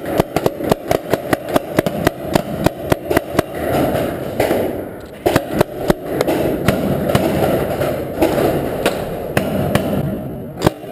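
Paintball markers firing, a rapid volley of sharp shots several a second, then more scattered shots.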